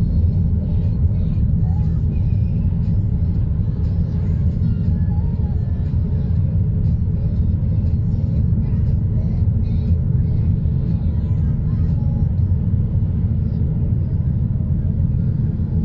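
Car cabin noise while driving: a steady low rumble of engine and tyres on the road.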